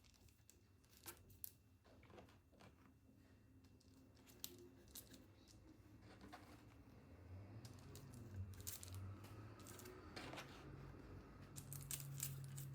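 Faint, scattered light clicks and short rustles of hands handling food and utensils, with a low hum coming in during the second half.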